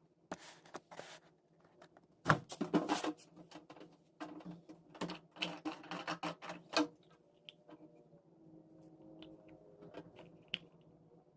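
A run of clicks, knocks and rustles from things being handled during cleaning, busiest in the first seven seconds, then fewer, fainter ticks.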